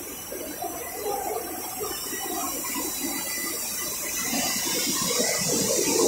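Steady rushing, hissing noise of a running EPDM rubber extrusion and microwave vulcanization line, growing louder toward the end.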